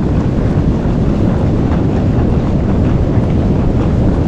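Steady wind buffeting the microphone, a loud, even low rumble.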